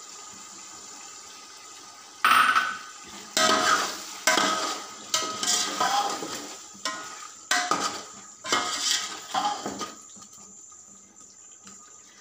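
Metal spoon clattering and scraping against the inside of an aluminium cooking pot while yogurt is mixed into chicken and potatoes: about nine sharp strokes, starting about two seconds in and stopping near the end.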